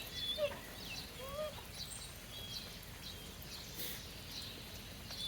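Steady light hiss of rain, with scattered short high-pitched chirps and whistles throughout.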